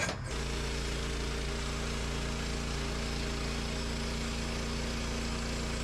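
Woodland Mills HM 130 MAX portable band sawmill's gasoline engine running steadily. It cuts in abruptly just after the start.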